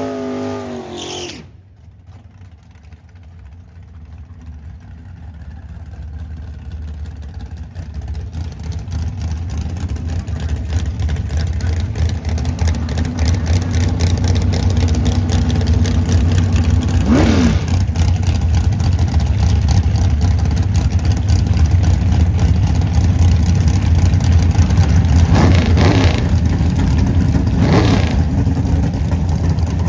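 Drag race car engines. A revving engine cuts off about a second and a half in, then a deep engine rumble builds over several seconds and holds. Three brief revs come through, once past the middle and twice near the end.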